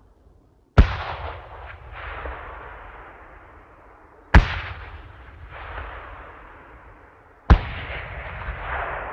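Three separate explosion blasts about three seconds apart, each a sharp crack followed by a long, fading rumble with crackling.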